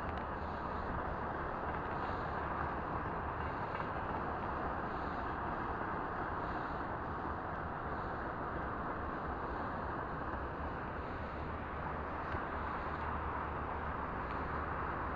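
Steady rushing outdoor background noise with a low hum underneath, and faint soft ticks repeating about once a second.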